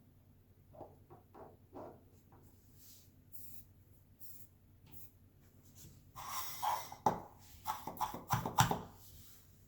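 Handling noises on a workbench: a few faint ticks, then about six seconds in a short scraping rustle followed by several sharp clicks and knocks, the loudest near the end.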